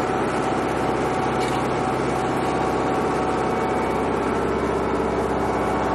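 A heavy engine running steadily at one constant speed, loud and even throughout.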